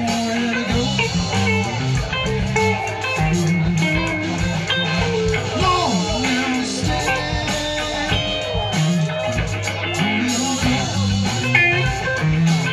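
Live rock band playing: an electric bass line under electric guitars, with a lead guitar line bending notes about halfway through.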